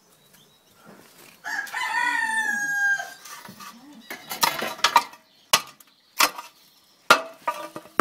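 A rooster crows once, a call of about a second and a half that drops in pitch at the end. It is followed by a run of sharp knocks and clatters.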